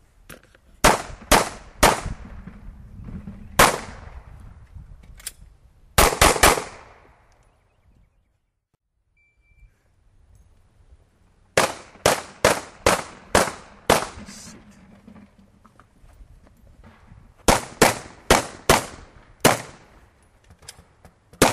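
Handgun shots in rapid strings, about twenty in all, in three groups of two to three shots a second, each crack with a short echo trailing it. A quiet break of a few seconds comes in the middle.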